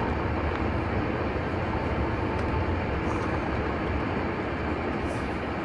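A car driving slowly, heard from inside the cabin: a steady low rumble of engine and tyres with a wash of road noise.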